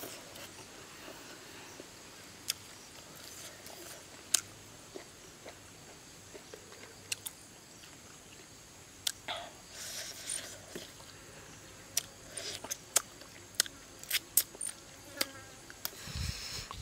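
Close-up eating sounds: sharp lip smacks and sucking clicks as cooked sea fish is eaten off the bone by mouth, scattered irregularly and more frequent in the second half. Insects hum faintly and steadily in the background.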